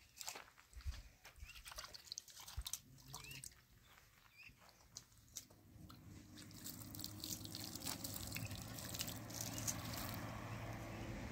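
Water splashing and pouring in a metal pan as tomatoes are rinsed: scattered small clicks of handling and a couple of faint high chirps in the first half, then from about halfway a steady pour that grows louder.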